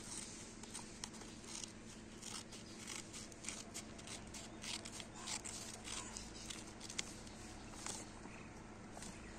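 Scissors cutting paper in a run of short, irregular snips.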